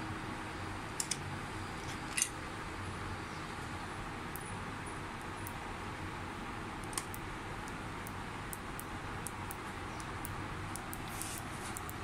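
Steady room hiss with a few sharp clicks and many faint ticks from hands handling a key-fob remote's bare circuit board and pressing its push-button.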